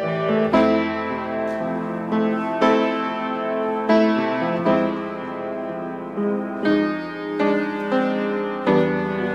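Piano music: slow notes and chords, each struck and left ringing, with a new chord about every second.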